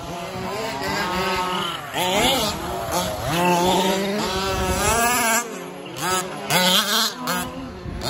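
Radio-controlled 4WD race cars running on a dirt track, their motors whining up and down in pitch as they accelerate and brake. A few sharp clattering hits come near the end.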